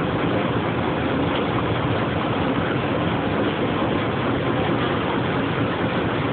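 A river ferry's engine running steadily under way: a constant, even drone with no change in pace.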